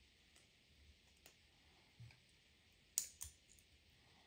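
Faint small metallic clicks as split-ring pliers open a split ring and the hooks are worked onto it, with two sharper clicks about three seconds in.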